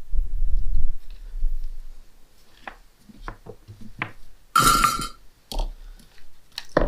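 Hands working wires and tools on a computer power supply: a low handling rumble in the first second, then scattered small clicks and taps, with a short hiss about two-thirds of the way through.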